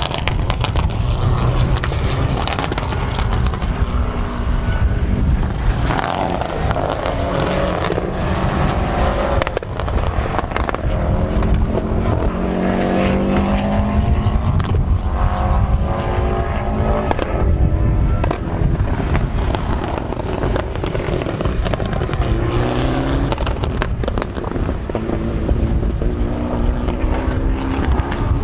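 Several race-prepared cars' engines revving hard and shifting through gears on a circuit, their pitch rising and falling as they pass one after another. Heavy wind buffeting rumbles on the microphone throughout.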